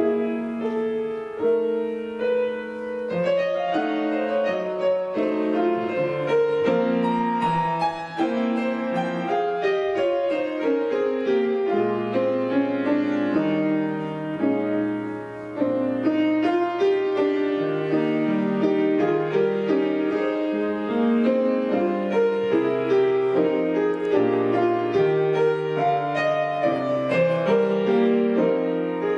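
Grand piano played solo, a steady stream of quick notes over a moving bass line. The playing briefly goes quieter about fifteen seconds in, then comes back in suddenly and loud.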